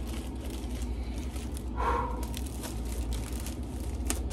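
Clear plastic bag crinkling and crackling as it is handled and opened, with a few sharp crackles about four seconds in. A brief vocal sound comes about two seconds in, over a steady low hum.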